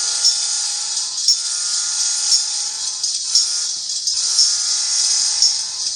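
Sound decoder in an N scale GE AC44C6M locomotive model playing its locomotive bell, ringing about once a second over a steady engine sound, from the model's tiny onboard speaker.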